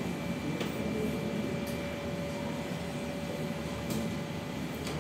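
Steady room noise: a continuous hum and hiss with a faint steady whine, and a few light clicks.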